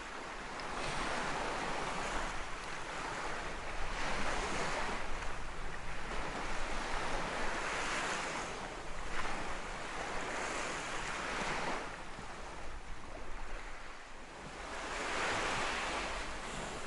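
Surf washing onto a beach, swelling and easing every few seconds, with some wind.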